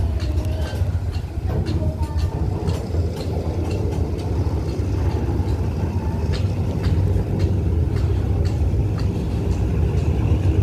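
Freight train of container flatcars rolling slowly away from a stop: a steady low rumble that slowly grows louder, with scattered clicks and clanks from the wheels and couplings.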